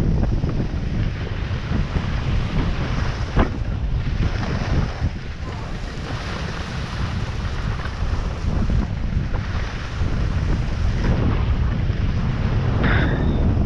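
Wind buffeting the microphone of a camera carried by a moving skier, over the continuous hiss and scrape of skis sliding and carving on packed snow; the rumble rises and falls with speed.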